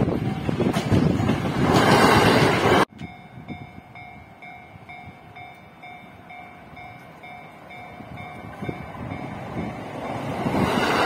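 Japanese level-crossing warning bell dinging in steady, evenly spaced two-tone pulses, while a JR E217-series electric train approaches and its running noise grows louder over the last couple of seconds. Before that, for about the first three seconds, a loud rushing noise that cuts off suddenly.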